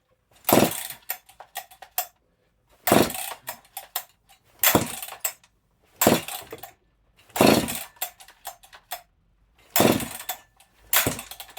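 Husqvarna 268XP two-stroke chainsaw being pull-started about six times, roughly every two seconds: each pull is a short rush of the recoil rope with the engine spinning over on compression, then starter clicks. It turns over with the choke on but does not fire, because fuel has not yet been drawn through the carburettor from the bone-dry tank.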